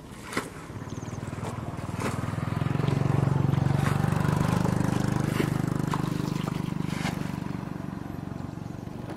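A small engine running steadily, growing louder over the first few seconds and fading toward the end as it passes by. A few short knocks sound over it.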